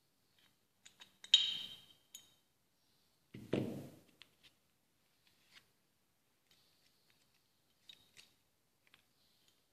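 Metal starter-motor parts (solenoid and housing) clinking and knocking together as they are handled and fitted: a sharp clink with brief ringing about a second in, a duller knock around three and a half seconds, then a few light ticks near the end.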